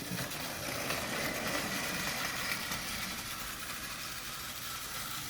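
Two battery-powered Plarail toy trains running around plastic track, a steady whir of their small motors and gearing.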